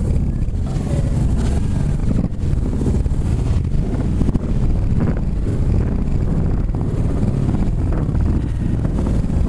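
Wind buffeting the microphone: a loud, steady, uneven low rumble.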